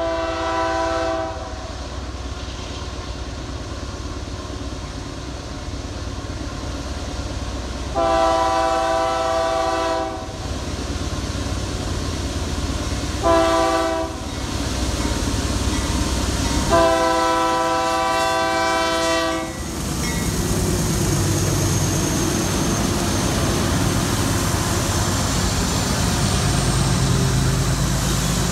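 Freight train's lead diesel locomotive, Union Pacific 5594, sounding its air horn in the grade-crossing pattern: long, long, short, long, the last blast held about three seconds. From about two-thirds of the way in, the locomotives pass close by, engines running and wheels rolling over the rails.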